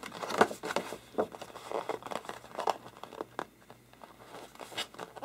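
A large sheet of posterboard being pressed flat by hand and bent up along one edge, giving an irregular string of short crackles and rustles.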